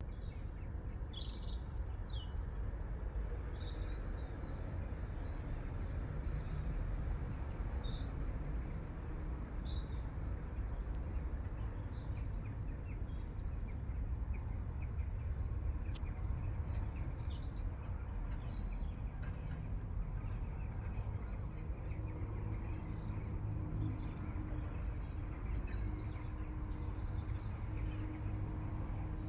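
Early-morning outdoor ambience: a steady low background rumble with birds chirping and calling sporadically throughout. A faint steady hum joins in for the last several seconds.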